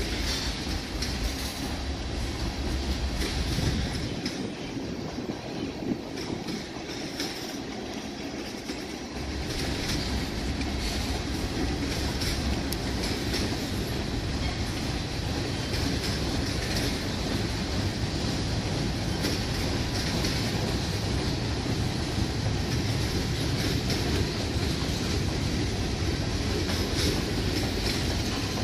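Loaded freight cars of a manifest train rolling past: a steady rumble of steel wheels on the rails with clicking and clacking from the wheels and trucks. The deep rumble thins out for a few seconds about four seconds in, then comes back.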